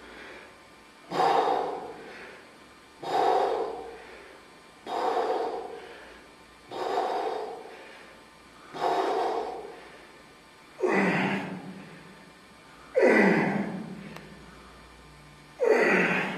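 A man breathing out hard in forceful puffs, about one every two seconds, one per repetition of heavy one-arm dumbbell rows. The last few puffs are louder, with more voice in them, as he strains.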